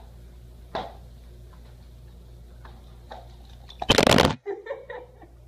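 Steady low hum with a sharp click about a second in and a few faint ticks. Near four seconds comes a loud, rough burst of handling noise, under half a second long, as the phone filming from the floor is knocked, then a few short, fainter sounds.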